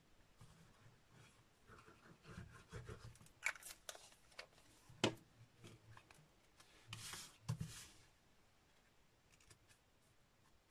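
Faint rustling and sliding of card stock being handled and pressed onto a folded card base, with a few small sharp ticks, the sharpest about five seconds in, and a short rubbing scrape at about seven seconds.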